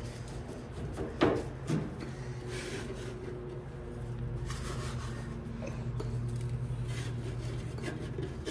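Dryer parts being handled during reassembly: two knocks about a second in, then rubbing and scraping over a steady low hum that grows louder about halfway through.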